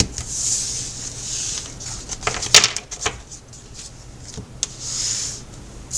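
Tarot cards being handled on a table: soft swishes of cards sliding and rubbing, with a few sharp taps, the sharpest about two and a half seconds in.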